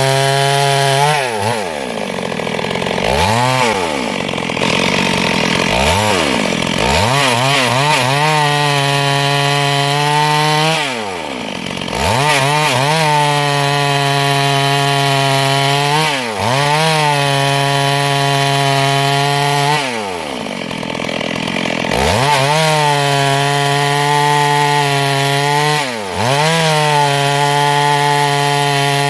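Chainsaw cutting along a log. It runs at high steady revs in the cut, and every few seconds the engine pitch drops sharply and climbs back up as the throttle is eased and opened again.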